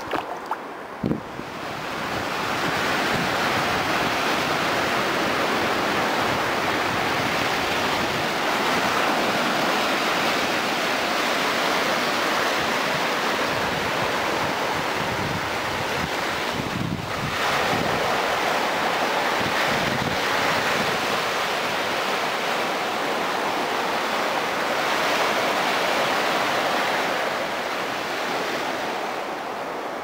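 Sea surf washing up on the shore, a steady rushing wash, with wind buffeting the microphone.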